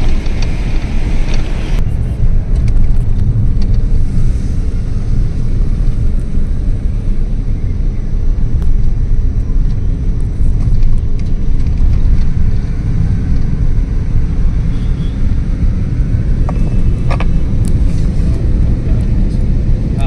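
Steady low road and engine rumble of a car at speed, heard from inside the cabin.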